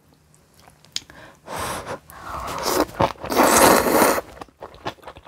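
Kalguksu noodles slurped into the mouth: a short slurp, then a longer, louder one, with small clicks of eating around them.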